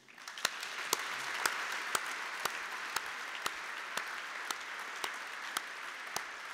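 Audience applause filling a large hall. Over it, sharper claps about twice a second from a pair of hands clapping close to a lectern microphone.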